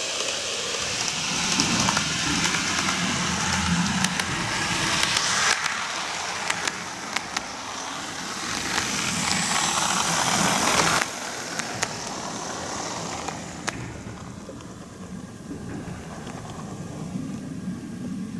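N-gauge model train (Greenmax Kintetsu 12410 series) running along the track: a steady whirring rattle of the motor and wheels with scattered clicks. It is loudest as the train passes close, drops off sharply about eleven seconds in, and fades quieter as it runs on.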